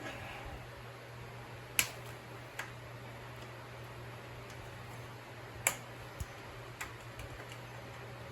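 Sharp metal clicks and taps from tools working a stuck pin out of a dirt bike, two louder ones about two and six seconds in and a few fainter ones between, over a steady low hum.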